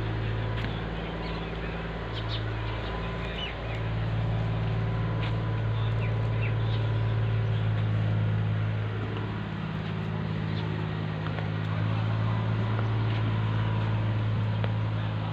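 Steady low mechanical hum, like a motor or engine running, that dips briefly a few times, with a few scattered bird chirps over it.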